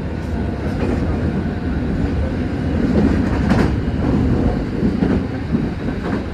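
Passenger train running along the track, heard from inside the carriage: a steady low rumble with a few wheel clacks over rail joints in the second half.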